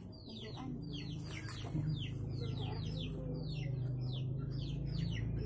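Chicks peeping over and over, each short peep falling in pitch, about three a second, over a low steady hum that comes in about half a second in and grows louder.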